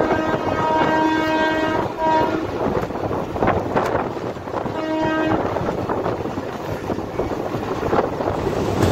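Train horn sounding a long blast that stops about two seconds in, then a short second blast about five seconds in. Underneath is the steady rush of the moving train and wind.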